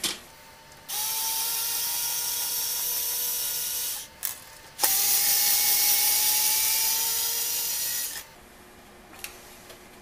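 Cordless power screwdriver backing out the receptacle's mounting screws: its motor runs with a steady whine twice, about three seconds each, with a short pause and a click before the second run.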